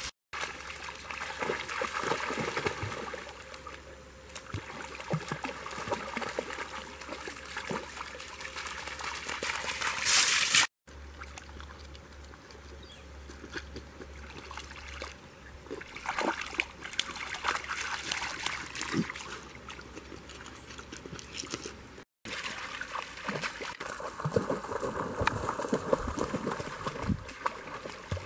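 Shallow creek water running over gravel, with scattered splashes as puppies wade through it. The sound breaks off briefly twice between clips, and grows louder just before the first break.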